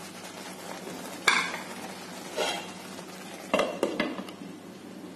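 Thick fig and sugar mixture simmering in a pan with a soft bubbling, broken by a few sharp clanks of a spoon and pan, the last of them a glass lid being set on the pan about three and a half seconds in.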